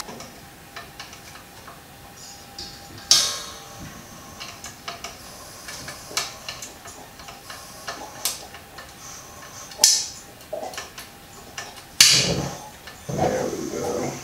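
Scattered light knocks and clicks of brewing equipment being handled at a kettle. The sharpest come about three, eight, ten and twelve seconds in, and a brief clatter follows the last.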